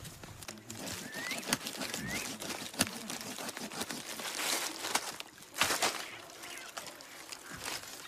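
Dry leaves rustling and crackling under handling, with louder rustles about four and a half and nearly six seconds in. A bird chirps twice, short rising notes, in the first couple of seconds.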